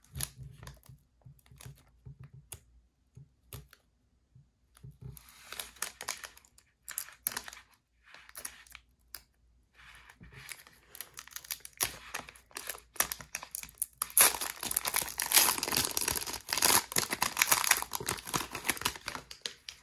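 Plastic wrapper of a Donruss football card hanger pack handled with scattered rustles and clicks, then torn open and crinkled steadily for the last five seconds or so, the loudest part.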